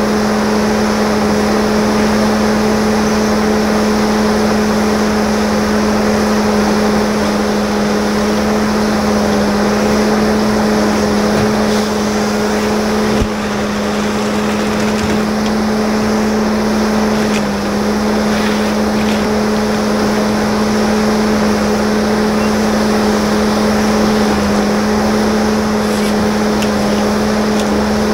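Steady machine hum held at one constant pitch throughout, with a rushing noise over it and only small dips in level now and then.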